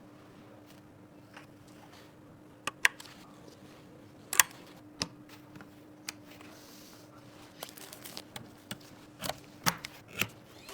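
Scattered sharp clicks and taps of computer parts being handled and fitted together, a few single ones and then a quicker run near the end, over a faint steady hum.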